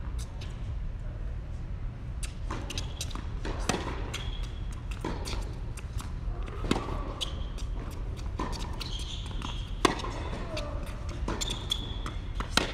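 Tennis rally on an indoor hard court: racket strikes on the ball and ball bounces, sharp knocks every second or so, over a steady low hum of the hall.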